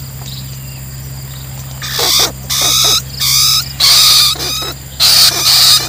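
Trapped rats squealing in a wire cage trap: a run of about seven loud, shrill squeals starting about two seconds in, over a steady insect drone.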